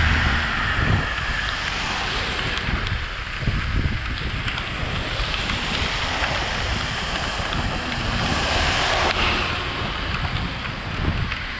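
Wind rushing over the microphone of a moving bicycle's camera, mixed with the steady hiss of tyres on a wet, rain-soaked road and cars swishing past through the spray.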